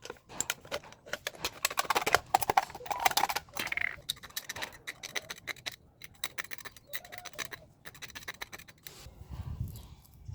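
Rapid, irregular clicks, taps and scrapes of hand work on thin aluminium beer cans, busiest in the first few seconds and sparser after.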